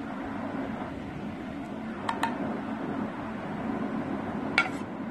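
Serving spoon clinking against a serving dish while fried eggplant pieces are spooned in: two quick ringing clinks about two seconds in and another near the end, over a steady low hum.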